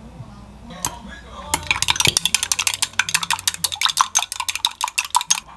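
Eggs being beaten in a glass mug, the utensil clicking rapidly and evenly against the glass. The clicking starts about a second and a half in, runs for about four seconds and stops just before the end.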